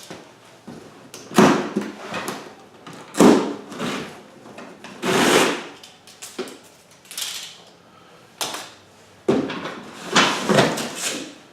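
A heavy cardboard shipping box being handled: a run of separate scraping and rustling noises, about one every second or two, as the packing straps come off and the carton is worked loose.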